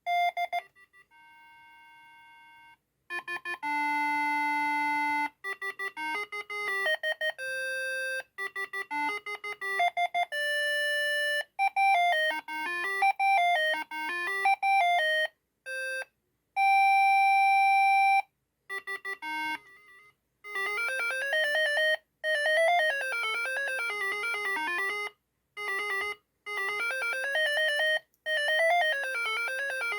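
Siemens ME45 mobile phone playing its built-in ringtones one after another: simple beeping melodies, one note at a time, with short pauses between tunes. Near the end a faster tune ripples up and down and repeats.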